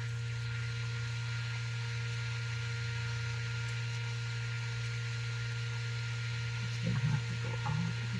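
A steady low hum with a hiss over it, unchanging, with a few faint brief sounds near the end.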